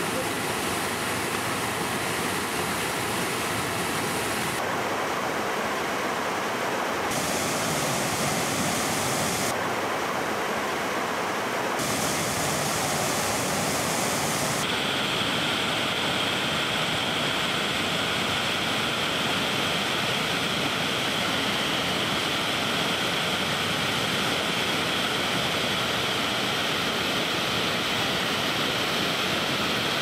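Swollen mountain stream in spate after a thunderstorm, whitewater rushing over and around boulders in a steady, dense rush of water noise.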